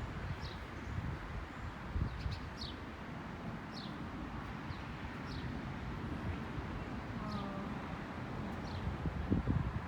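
Birds chirping, short high chirps roughly once a second, over an outdoor hiss. Wind gusts rumble on the microphone about two seconds in and again near the end.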